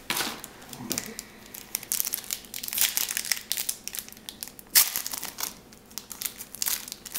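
Crinkling and crackling of a trading card pack wrapper being handled and torn open, in many quick irregular crackles with a sharper, louder rip about five seconds in.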